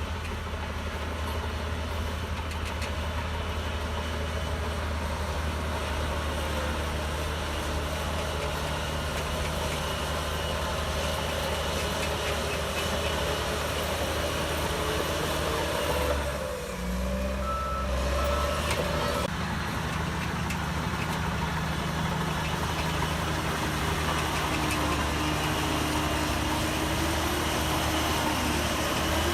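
Shantui DH17C3 bulldozer's diesel engine running steadily under working load. A few reversing-alarm beeps just past the middle.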